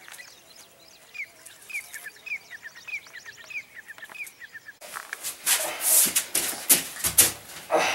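A bird calling repeatedly in short falling notes, about two a second. It is cut off suddenly by loud, irregular rustling and scuffling of cloth and bodies in a close struggle.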